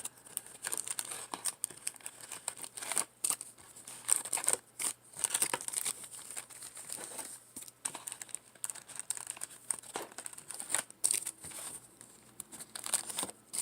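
A trading card pack wrapper being crinkled and torn open by hand, an uneven run of sharp crackles and rustles.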